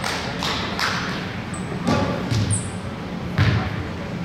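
Basketball game on an indoor court: a few separate thuds of the ball and players' feet on the floor, about a second apart, with two brief high squeaks in between.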